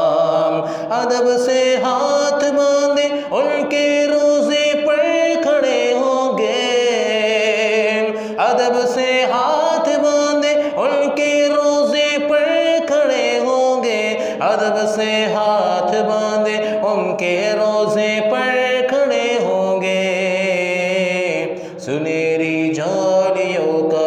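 A man singing a devotional Urdu naat unaccompanied, in a drawn-out melismatic style: long held notes with ornamented turns, broken by short breaths about every three to six seconds.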